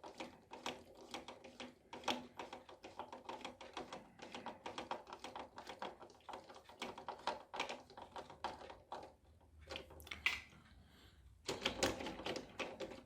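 Rapid, irregular clicking and tapping of small plastic parts being handled and fitted on a radio-controlled toy car, pausing briefly about ten seconds in before a last flurry of clicks.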